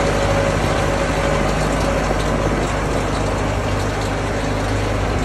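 Hanomag tractor's diesel engine idling steadily.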